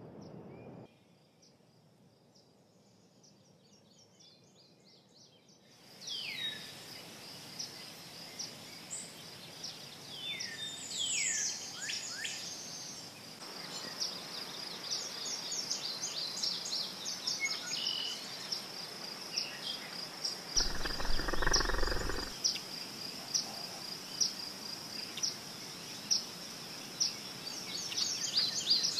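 Outdoor summer ambience: insects keep up a steady high chirping trill, with birds calling in downward-sweeping notes. About two-thirds of the way through there is a brief low rushing noise.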